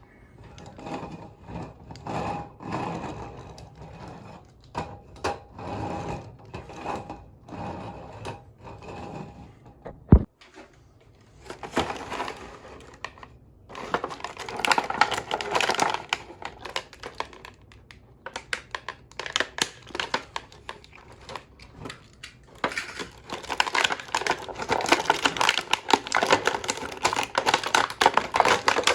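Toy packaging being handled and opened by hand: dense crinkling and crackling of plastic and cardboard with quick clicks, one sharp click about ten seconds in, and heavier crackling in the second half.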